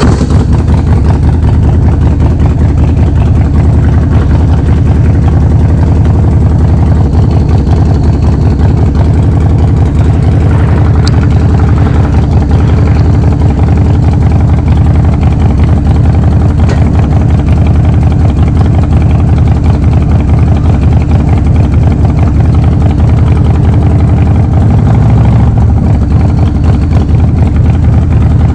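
Harley-Davidson Forty-Eight's 1200 cc air-cooled V-twin running steadily at idle through a Vance & Hines full exhaust system. Its note rises briefly near the end.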